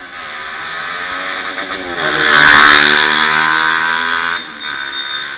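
Bajaj Pulsar motorcycle engine accelerating under way, its pitch rising over the first two seconds. A loud rush of noise over the engine follows in the middle, then it eases off near the end.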